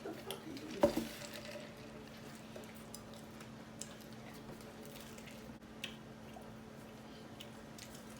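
Small wet clicks and smacks of chewing, with one louder knock about a second in, over a steady low hum.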